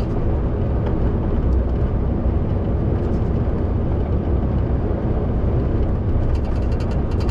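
Steady low rumble of a lorry cab at motorway speed: the diesel engine and the tyres on the road, heard from inside the cab.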